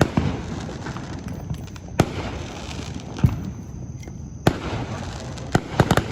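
Fireworks going off: single sharp bangs about every one to two seconds, then a quick run of several cracks near the end.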